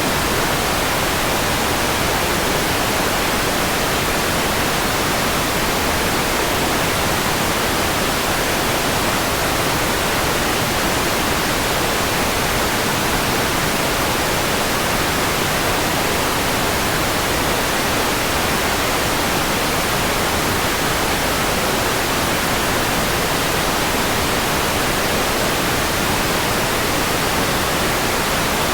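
Steady, unchanging white noise: an even hiss across the whole range with nothing else in it.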